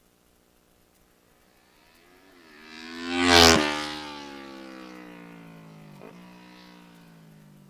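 Race-modified Kawasaki Ninja 650R parallel-twin passing by at speed. The engine note builds to a loud peak about three and a half seconds in, drops sharply in pitch as the bike goes past, then fades away with a slowly falling pitch.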